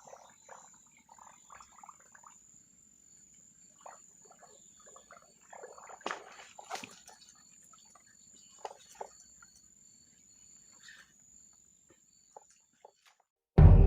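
Steady high-pitched insect drone, cricket-like, with faint scattered soft rustles and knocks. Music starts abruptly at the very end.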